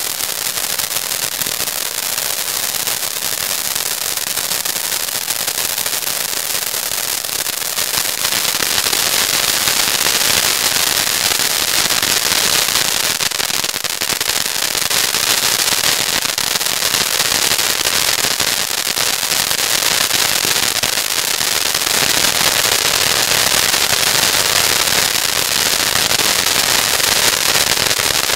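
Colour World Fountain ground firework spraying sparks with a steady hiss and dense crackling throughout, growing a little louder about eight seconds in.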